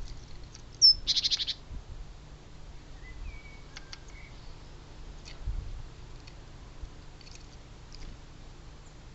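Small birds calling: a high down-slurred chip, then a short fast trill about a second in, followed by a few scattered faint chips and ticks.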